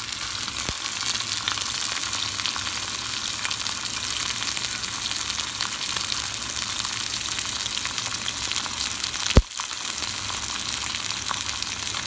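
Beef steak searing in hot oil in a cast iron skillet: a steady, crackling sizzle. One sharp click about nine seconds in.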